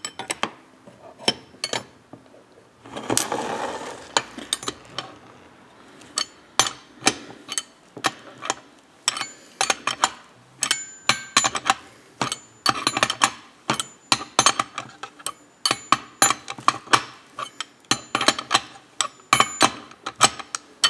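Steel combination wrenches clicking and clinking against each other and the crankshaft nut of a chainsaw crankcase, in many short irregular metal clicks. A brief rustling noise about three seconds in.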